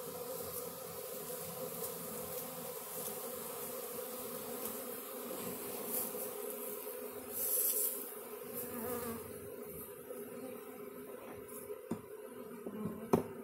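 Steady hum of a honeybee swarm, many bees buzzing together on one low droning pitch. A short hiss comes about halfway through, and two sharp clicks near the end, the second loud.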